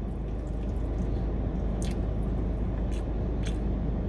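Close-up chewing and wet mouth sounds of eating spaghetti, with a few short clicks of a plastic fork against a plastic food tub, over a steady low hum from the car's running engine and air conditioning.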